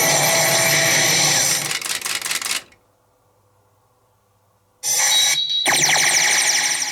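CR Tsurikichi Sanpei pachinko machine playing: a dense clatter of steel balls mixed with the machine's electronic sounds, cutting off about two and a half seconds in. After about two seconds of near silence it resumes with a short high beep and a run of falling electronic tones that fade out.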